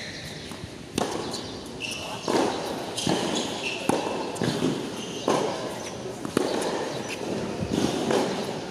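Tennis rally on a hard court: sharp knocks of the ball off rackets and the court, roughly one a second, with a few short high squeaks between them.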